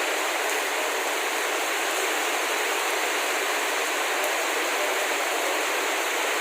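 Heavy rain pouring down, a steady, even hiss of rain with no let-up.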